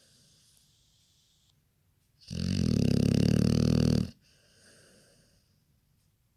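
Snoring: faint breathing, then one loud, fluttering snore about two seconds in that lasts nearly two seconds, then faint breathing again.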